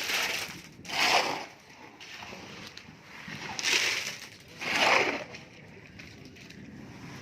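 Masonry work: three separate scraping strokes, each about half a second long, a few seconds apart, over a low background.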